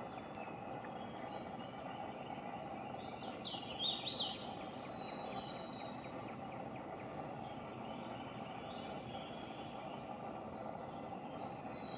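Hooded warbler singing one short song of loud, slurred whistled notes about three and a half seconds in. Underneath is a steady background hum and faint thin high notes here and there.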